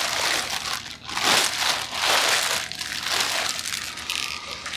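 Clear plastic packaging bag crinkling and rustling in irregular surges as it is pulled off an electric unicycle's wheel.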